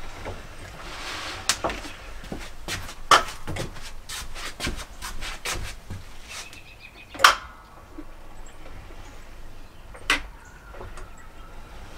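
Knocks, clicks and rubbing of a wooden board being handled and set onto a table mount, with three sharper knocks about three, seven and ten seconds in.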